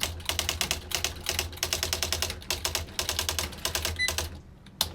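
Smith Corona XL 1500 electronic daisy-wheel typewriter printing a rapid run of characters, the print wheel's hammer striking several times a second over a steady motor hum. About four seconds in a short beep sounds, the end-of-line warning that the carriage is nearing the right margin, then one last strike and the typing stops.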